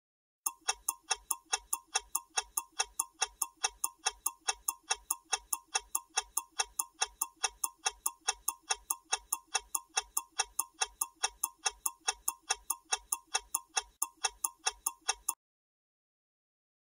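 Ticking sound effect of a quiz countdown timer: a rapid, evenly spaced clock-like ticking that starts about half a second in and cuts off suddenly near the end as the timer reaches zero.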